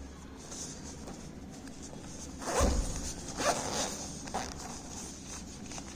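Handling noise as a small clip-on microphone is taken out of its case or packaging: a few short rasping strokes near the middle, zipper-like.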